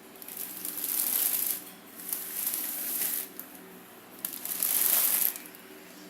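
Packaging of a new electric fan crinkling and rustling as it is handled, in three bursts of about a second each.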